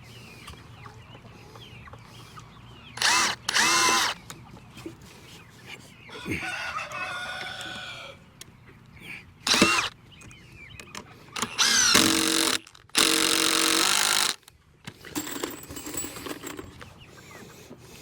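Cordless drill run in several short bursts, its motor whine rising as it drives screws into framing, the longest bursts in the second half. A rooster crows once in the background, a few seconds in.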